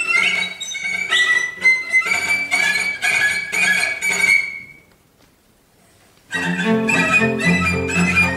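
Cello ensemble playing: a high melody in short bowed strokes over short low notes, fading out a little over four seconds in. After about a second and a half of silence the cellos come back in together with fuller, lower chords.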